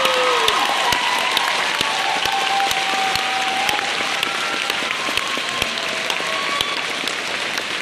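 Theatre audience applauding at the end of a song, with a few voices cheering over the dense clapping.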